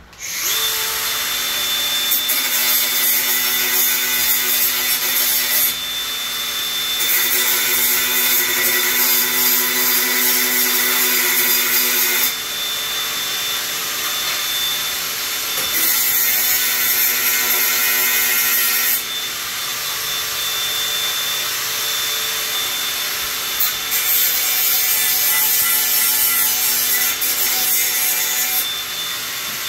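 Handheld electric power tool running continuously with a steady motor whine while abrading a frame's surface. Its sound shifts every few seconds as it is pressed harder and eased off.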